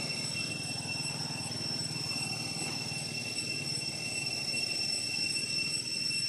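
Steady low background rumble with a constant thin high-pitched whine over it and no distinct events.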